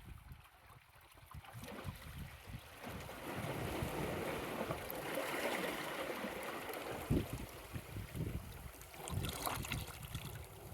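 Small waves washing in over rocks at the shore, a rush of water that swells about three seconds in and eases off near the end, with wind buffeting the phone's microphone.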